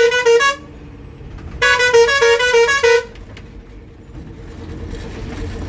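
A bus's horn sounding in rapid pulses, about five a second: one blast cuts off about half a second in and a second, about a second and a half long, follows a moment later. The bus's running noise carries on underneath, lower and quieter, once the horn stops.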